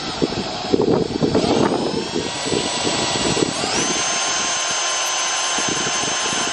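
Cordless drill boring a pilot hole into a wooden board: a steady motor whine over the crackle of the bit cutting into the wood. The whine steps up in pitch a little past halfway.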